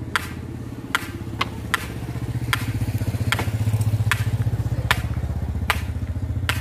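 Sharp test-pulse clicks about every 0.8 seconds from a large sound-system speaker stack during a phase check. Under them runs a steady low engine rumble that swells for a few seconds in the middle.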